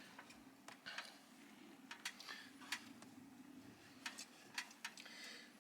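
Faint, scattered clicks and light taps, about a dozen, irregularly spaced: small parts of a heat pump line-set cover being handled and fitted.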